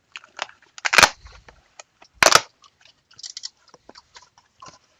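Cardboard packaging being handled and torn open by hand: scattered rustles and clicks, with two loud sharp crunching rips, one about a second in and one just past two seconds.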